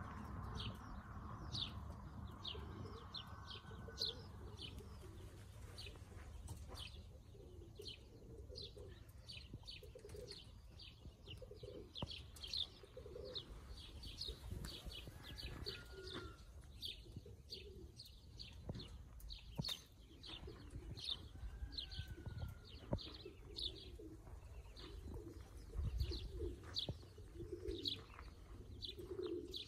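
Pigeons cooing softly and repeatedly, with small birds chirping in quick, high notes all the while.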